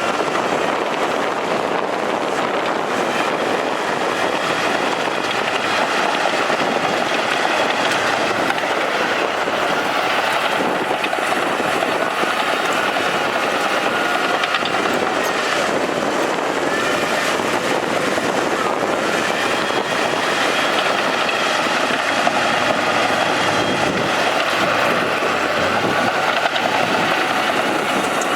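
Crawler bulldozer at work: its diesel engine running steadily under load, with its steel tracks, a continuous din with a faint high whine.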